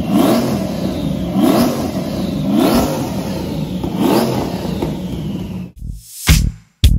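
Twin-turbo Fox-body Mustang drag car's engine idling roughly and being blipped four times, each rev a short rise in pitch about every second and a half. Music cuts in near the end.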